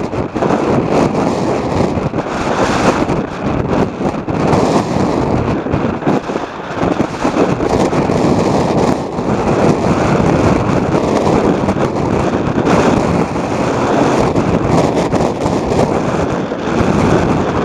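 Heavy storm surf crashing against the harbour quay and reef, under a strong typhoon wind buffeting the microphone: a loud, continuous, surging roar.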